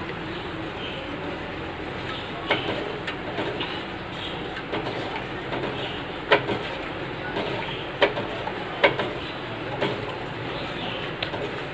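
Steel spoon stirring and scraping around a stainless steel pan of milk curdling with lemon juice, with several sharp clinks of metal on metal over a steady low hum.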